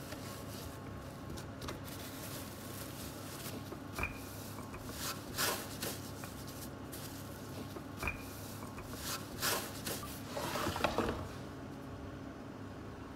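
Food-preparation handling noises: a plastic sheet rustling while dough is tipped out of a glass bowl and pressed flat by gloved hands, with two light clicks with a short ring, about four seconds apart, over a steady low hum.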